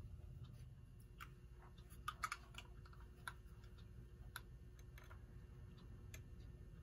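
Faint, scattered small clicks of a screwdriver and fingers working at the screws and nuts of an old electric plug, with a quick cluster of clicks about two seconds in.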